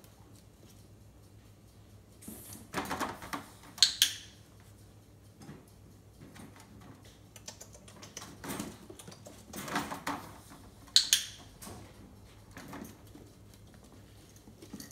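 Two sharp clicks of a dog-training clicker, about seven seconds apart, each marking that a food reward is coming for the puppy. Between them, softer rustling and handling noises as food is taken from a metal bowl and given by hand.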